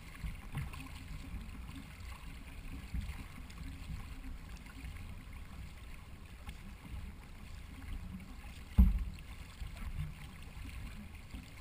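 Racing canoe moving on the water, heard from a camera mounted on the hull: a low rumble of water against the hull with scattered knocks, and one sharp, loud thump against the hull about three-quarters of the way through.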